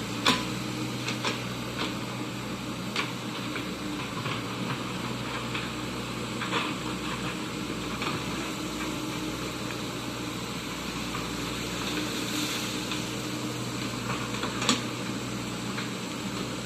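Komatsu PC78 excavator's diesel engine running steadily, with a few short sharp knocks scattered through, the loudest just after the start and near the end.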